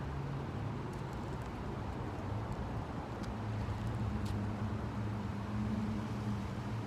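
Steady low rumble of road traffic, with a vehicle engine hum that grows a little louder and higher about four seconds in.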